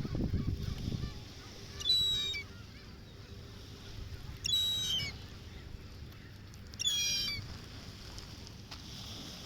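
Gulls calling: three short, high-pitched squawks a couple of seconds apart, over a low rumble that is strongest in the first second.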